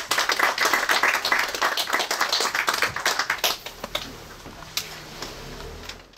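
Small audience applauding in a room. It is dense at first, thins out to scattered claps after about four seconds, and cuts off suddenly at the end.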